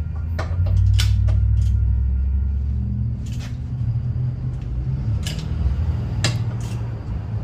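Scattered sharp clicks and knocks of hand tools working the bolts under a car, over a steady low rumble.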